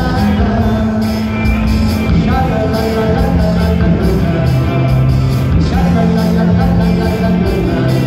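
Live band music heard through a PA system: a male singer over electric guitar, drums and keyboard, with held notes over a steady beat.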